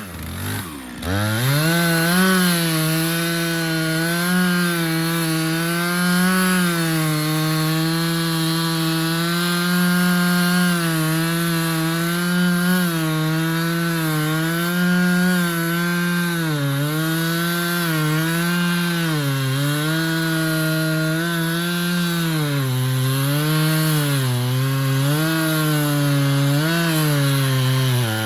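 A two-stroke chainsaw running hard on a Granberg Alaskan mill, ripping lengthwise through a cedar log. Its pitch wavers as the cut loads it. About a second in, the pitch drops sharply and then revs back up.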